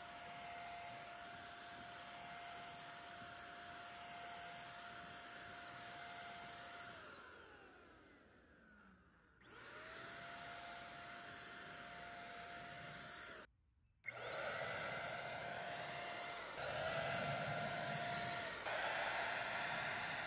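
HomeRight electric paint spray gun's motor running with a steady whine. It winds down with falling pitch and stops about seven seconds in, then starts up again with a rising whine a couple of seconds later. It runs on and is louder near the end.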